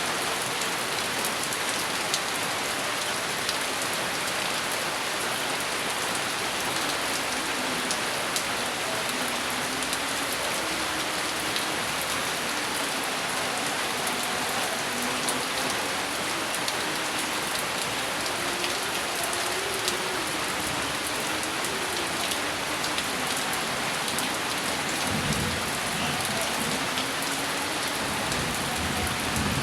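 Steady rain falling on a surface, an even hiss throughout, with a low rumble of thunder coming in near the end.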